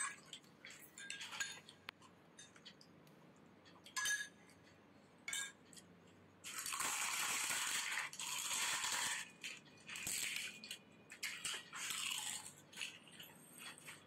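Eating pani puri: crisp puri shells cracking and small clinks from spoons in glass bowls, then, from about six and a half seconds in, a few seconds of loud crunching and slurping as whole filled puris are eaten, followed by shorter bursts of the same.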